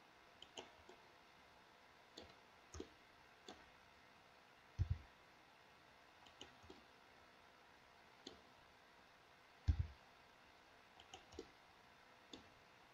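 Faint, scattered clicks of a computer mouse and keyboard, with two louder double thumps about five and ten seconds in.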